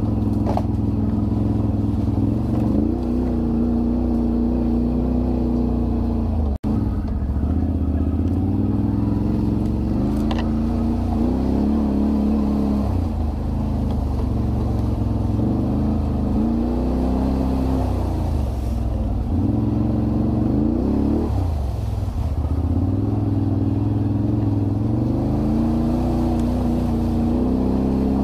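Can-Am Renegade 1000 ATV's V-twin engine running as it is ridden, its pitch rising and falling again and again as the throttle is opened and eased off. The sound breaks off for an instant about six and a half seconds in.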